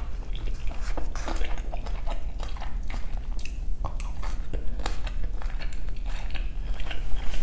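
A person chewing food close to the microphone: irregular wet mouth smacks and clicks throughout.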